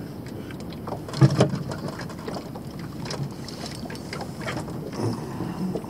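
Knocks, clicks and handling noise in a small fishing boat over a steady low background, with one louder knock about a second in.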